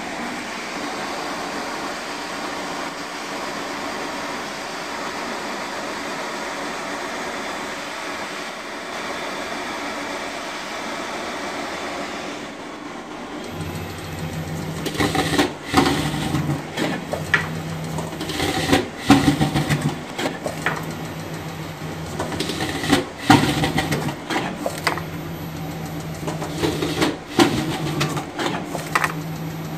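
Uchida Aerocut One card cutter/creaser running: at first a steady rush of air from its suction feeder. About 13 seconds in, a low motor hum joins it, with repeated sharp clacks as sheets are fed, slit, cut and creased.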